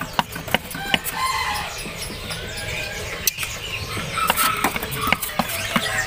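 Caged birds chirping and calling, a mix of short pitched notes, with scattered sharp clicks and taps.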